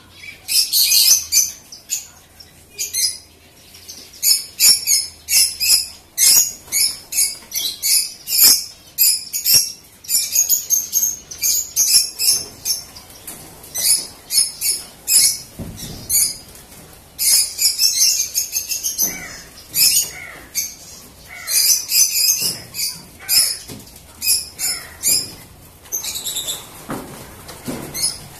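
Many small birds chirping over one another in rapid, high-pitched calls, with a few lower sweeping calls in the second half.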